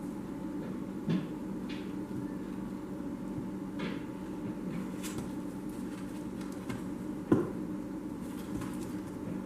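A few light knocks and clicks, the sharpest about seven seconds in, over a steady low hum.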